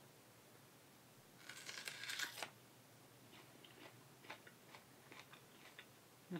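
Teeth biting into a whole raw onion, a burst of about a second starting about a second and a half in, then faint chewing clicks of the mouthful.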